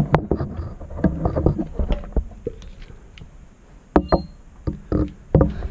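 Irregular knocks, taps and scuffs of footsteps and shuffling on loose chalk and flint rubble. A sharp knock about four seconds in is followed by a brief high squeak.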